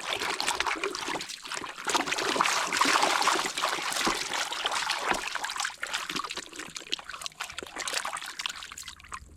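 Running water trickling and splashing as a plastic toy is rinsed and washed. It starts suddenly and eases off near the end.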